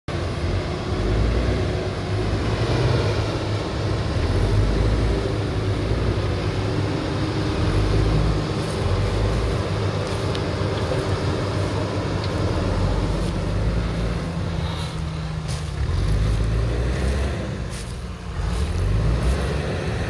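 Dump trucks' diesel engines running under load to raise their hydraulic tipper beds, the engine note shifting up and down, with scattered sharp knocks in the second half as soil tips out.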